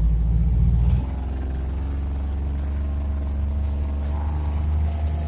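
Farm vehicle's engine running while driving across a field, heard from inside the cab: a steady low drone that rises slightly in pitch, with a heavier low rumble for about the first second.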